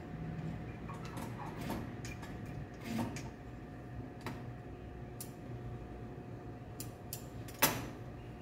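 Fabric being handled and turned under an industrial sewing machine's presser foot: soft rustling with a few irregular sharp clicks, the loudest near the end, over a steady faint hum.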